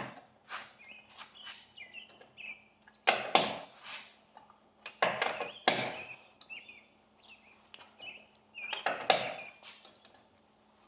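Lug wrench being worked on the lug nuts of a car's front wheel: three loud scraping strokes a few seconds apart, with faint high squeaks between them.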